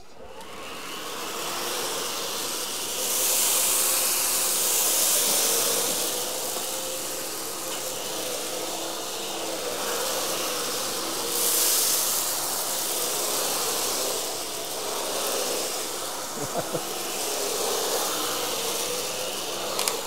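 Miele Triflex HX1 cordless stick vacuum running on low-pile carpet: a steady hissing motor whine that swells and eases as the floor head is pushed about. A few light clicks come about three-quarters of the way through.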